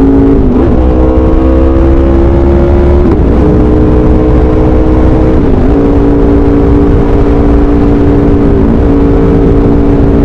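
Aprilia RSV4 RF's 65° V4 engine through an SC-Project CRT exhaust, recorded onboard under steady throttle. The note climbs slowly and dips briefly about four times, each time settling a little lower, as on quickshifted upshifts. Wind rumble on the microphone underneath.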